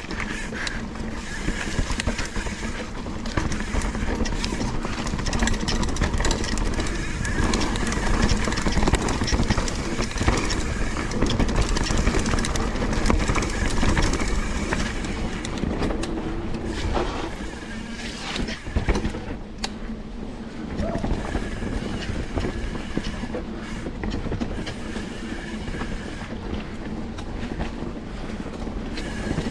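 Specialized Enduro mountain bike being ridden along a rough dirt trail: a continuous clattering rattle of chain, frame and suspension with tyres running over dirt and rocks.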